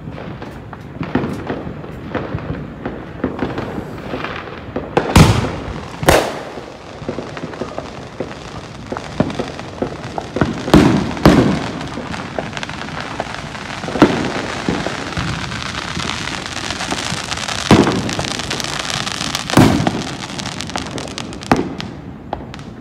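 Fireworks going off around the neighbourhood: sharp bangs every few seconds at irregular spacing, over a continuous crackle of smaller firecrackers that thickens in the second half.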